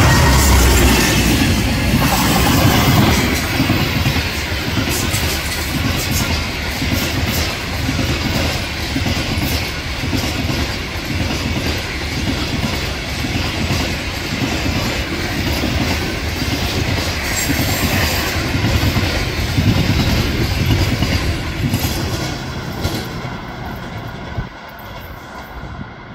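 An EP20 electric locomotive and its passenger coaches pass close by at speed, the wheels clattering over the rail joints in a repeating rhythm. The sound fades near the end as the last coach pulls away.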